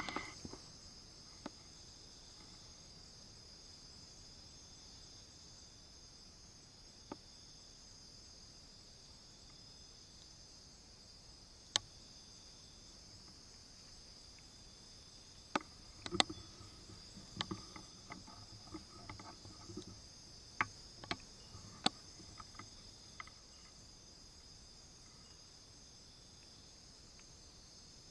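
Steady, high-pitched chorus of forest insects such as crickets, with several sharp clicks and light rustling scattered through the middle of the stretch.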